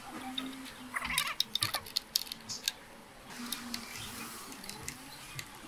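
A cat meowing in several low, drawn-out calls. A cluster of sharp clicks and taps from work on the handlebar hardware comes about one to two seconds in.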